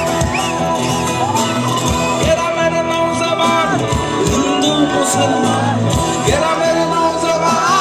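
Live Bengali folk-rock band playing: electric guitars over a drum beat, loud and continuous, with voices singing and shouting.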